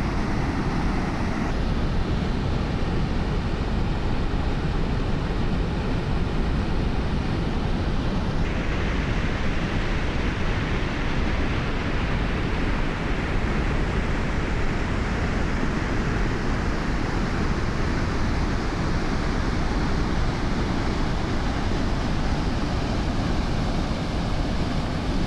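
Muddy floodwater pouring over a low weir and churning below it: a steady, unbroken rush of water, heavy in the low end.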